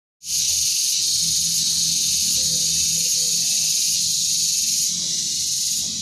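Cicadas in chorus: a steady, high, continuous buzzing drone that eases slightly after about five seconds.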